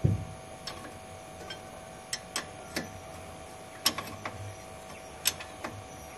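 Hand tools and metal parts clicking and tapping irregularly under a truck chassis, opening with a dull knock, over a faint steady hum.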